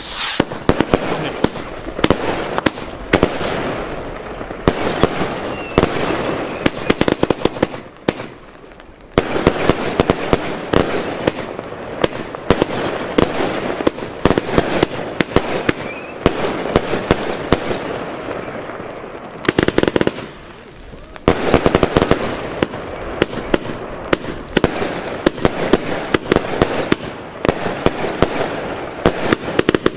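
A 25 mm, 100-shot 'King of Bling' firework battery firing in rapid succession: a dense run of launch thumps and shell bursts that lulls briefly about eight seconds in and again about twenty seconds in.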